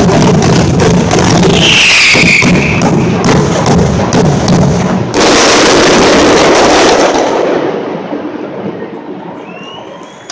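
Aerial fireworks going off in a rapid barrage of bangs and crackles, with a brief high whistle about two seconds in. About five seconds in a dense salvo bursts all at once, then the crackling fades away.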